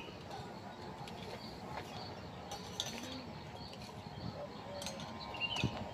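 Light clinks and taps of cooking utensils and dishes being handled at a camp table, with a couple of brief bird chirps.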